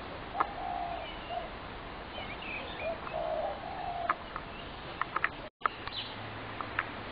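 Spotted doves cooing, low drawn-out coos in the first four seconds, with higher chirps of other small birds and several sharp clicks. The sound drops out briefly about five and a half seconds in.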